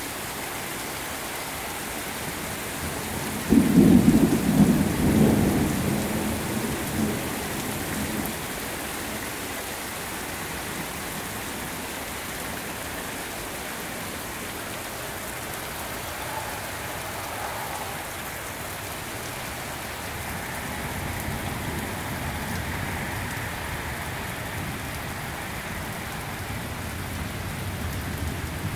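Heavy rain pouring steadily, with a loud clap of thunder about three and a half seconds in that rumbles away over the next few seconds, and a fainter roll of thunder about twenty seconds in.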